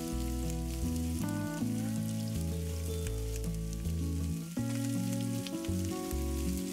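Meatballs and sliced vegetables sizzling in oil in a stainless steel frying pan, with a spatula starting to stir them near the end. Background music of sustained chords plays over it.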